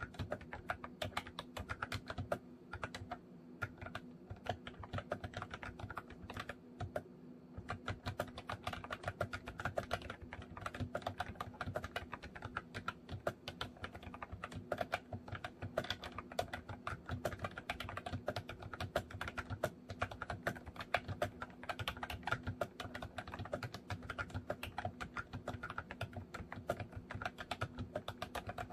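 MOFii Retro Style Candy keyboard being typed on continuously: a fast, steady stream of key clicks, thinning out a little for a few seconds early in the stretch before picking back up.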